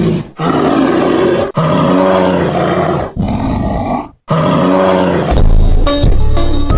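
A large animal roaring in four long, rough calls with short breaks between them, followed near the end by a deeper, steadier rumble.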